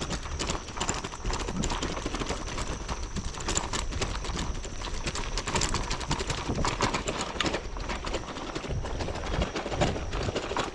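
Irregular clicks and clacks over a low rumble, from bicycles and cyclists on the move.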